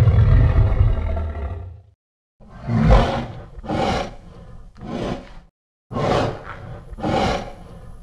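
King Kong giant-ape monster roar sound effect: a long, deep roar that trails off about two seconds in, then five short roaring grunts about a second apart.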